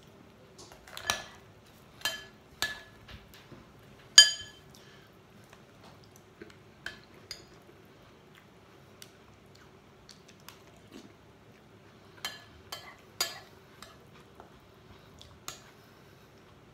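Metal spoon clinking and scraping against a ceramic bowl in scattered, ringing strikes. The loudest strike comes about four seconds in, there is a quieter stretch in the middle, and another cluster of strikes comes near the end.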